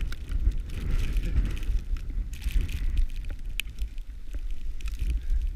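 Skis running through deep powder snow, a steady hiss that swells and fades, over a low wind rumble on the action camera's microphone, with a few sharp ticks.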